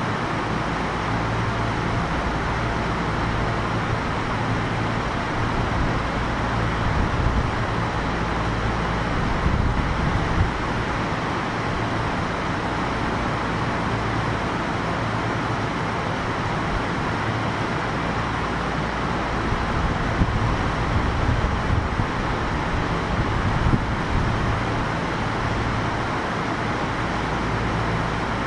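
Kintetsu 1021 series electric train standing at the platform: a steady hum and hiss from its onboard equipment, with a low hum that comes and goes and a few brief knocks.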